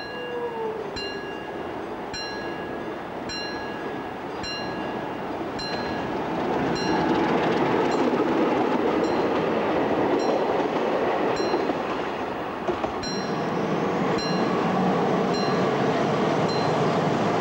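Level crossing warning bell ringing about twice a second while a diesel-hauled passenger train passes close by; the locomotive's engine and the rumble of the train grow louder from about six seconds in and drown the bell.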